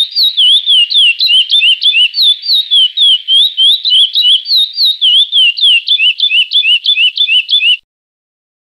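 Curió (chestnut-bellied seed finch) singing the Praia Clássico song: a fast, unbroken run of clear whistled notes slurring up and down, which cuts off abruptly near the end.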